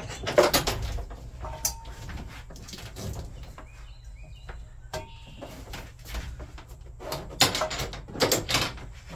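Scattered knocks and clatter of motorcycle track gear being handled and fixed to the wall L-track inside a cargo van. A busier run of knocks comes from about seven seconds in.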